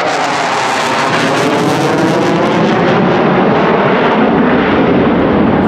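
Loud jet noise from a twin-engine delta-wing fighter jet flying with its afterburners lit, with a sweeping, phasing tone as it passes. The highest hiss fades about three seconds in as it climbs away.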